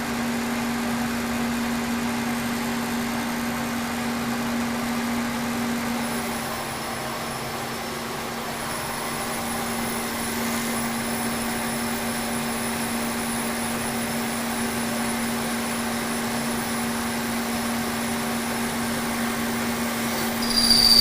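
Kearney & Trecker 2HL milling machine, rigged as a lathe, running steadily with a strong hum while a light cut is taken on a chuck mounting plate. A faint high whine joins about six seconds in.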